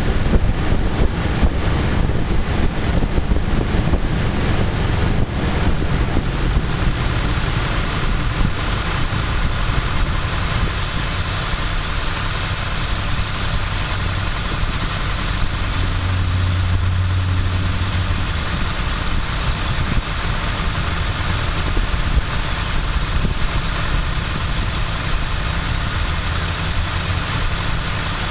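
A 1996 Mazda MPV's 3.0-litre V6 idling steadily, heard from the open engine bay.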